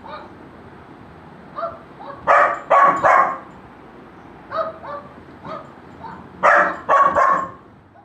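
A dog barking: a few fainter short barks, and two loud runs of three barks, about two seconds in and again about six and a half seconds in.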